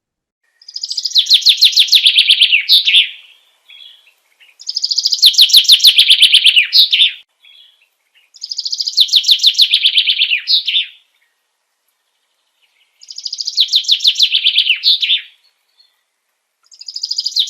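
A songbird singing the same phrase over and over, five times: each a rapid trill of about two and a half seconds that falls in pitch and ends in a short flourish, with a second or two of silence between phrases.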